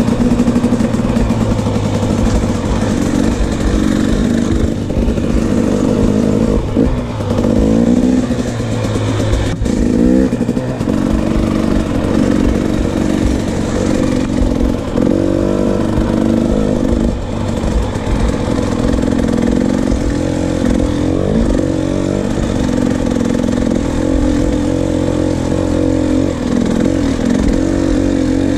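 KTM 300 two-stroke dirt bike engine running under way, its revs rising and falling again and again as the throttle is worked.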